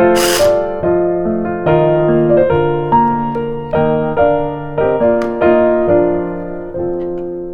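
Solo piano background music: a slow run of single notes and chords, each struck and left to fade. A short burst of whirring noise cuts off in the first half second.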